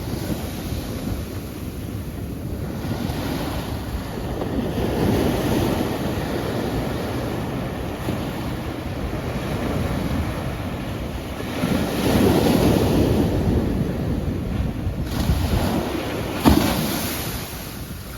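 Sea waves washing onto a shore, swelling and easing in turn, loudest about twelve seconds in, with a short sharp hit near the end.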